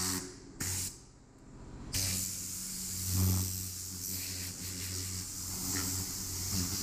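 Compressed-air blow gun hissing as it blows grit off freshly sandblasted steel truck rims: a short blast, a brief second one, then a long steady blast from about two seconds in. A steady low hum runs underneath.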